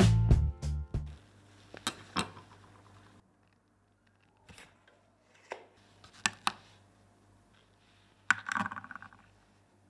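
Guitar music ending in the first second, then a few sharp clicks and taps from handling a steel tape measure against a large dog tooth. Near the end comes a short clatter as the tooth is set down on a digital scale's metal platform.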